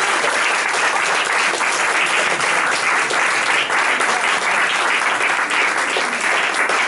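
An audience applauding steadily: many hands clapping at once, a dense patter of claps.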